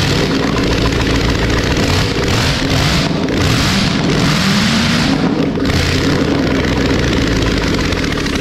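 1960 Chevrolet 283 small-block V8 with a two-barrel carburetor running loud on a run stand, breathing straight out of open exhaust ports with no manifolds fitted. Engine speed climbs about four to five seconds in as the throttle is opened, then holds at a fast idle.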